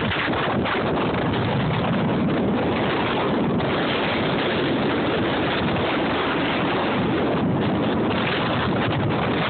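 Blizzard wind blowing hard and buffeting the microphone: a steady, loud rushing that does not let up.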